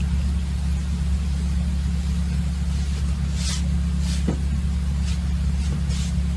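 A steady low mechanical hum, constant in level, that cuts off abruptly just after the end.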